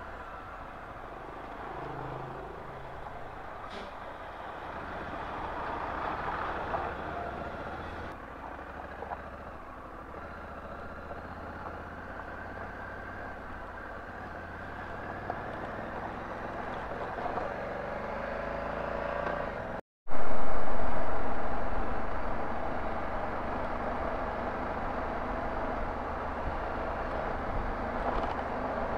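Honda Africa Twin motorcycle under way: steady engine and wind noise. The sound breaks off for an instant about two-thirds of the way through and comes back much louder, then eases down.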